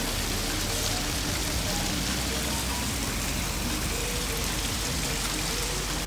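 Small waterfall splashing over rocks into a shallow stream: a steady, even rush of falling water.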